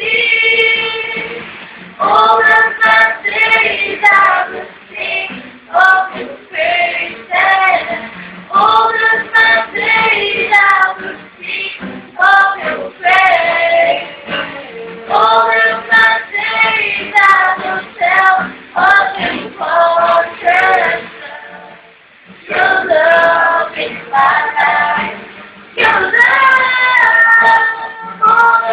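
A woman singing a song into a microphone, accompanied by a strummed acoustic guitar, with a short break between phrases about three-quarters of the way through.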